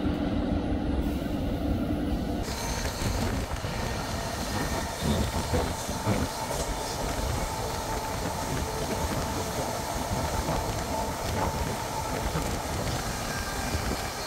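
Passenger train running along the track, heard from on board: a steady rumble and rattle of wheels on rail. About two seconds in the sound turns suddenly brighter and hissier, and a faint steady squeal runs through the rest.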